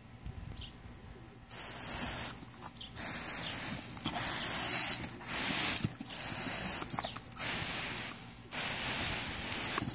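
Garden hose spraying a jet of water with a loud hiss that starts about a second and a half in, with a few short breaks.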